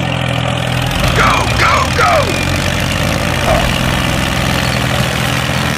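An engine idling steadily with a low, even hum. A few short squeals that bend in pitch come about a second in and again near three and a half seconds.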